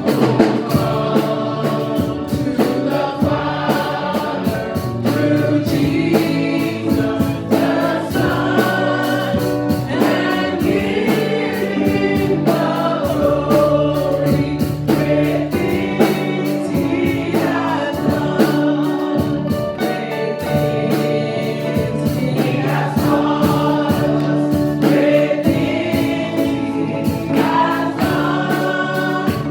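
Gospel praise-and-worship singing by a choir, with a band keeping a steady bass line and a regular drum beat.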